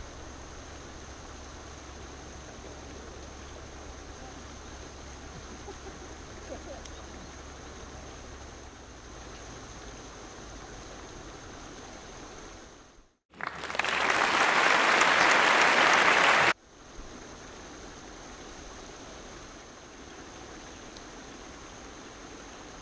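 Quiet outdoor background noise, then about thirteen seconds in, after a brief drop-out, a loud burst of applause lasting about three seconds that cuts off abruptly, an edited-in sound effect.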